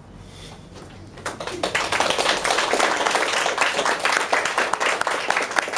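Audience applauding, starting after about a second of quiet and quickly building to steady clapping.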